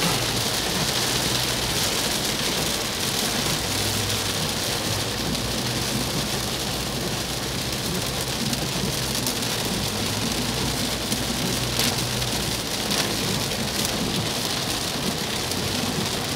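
Heavy rain drumming steadily on a car's roof and windscreen, heard from inside the cabin, over a low, steady hum of the moving car.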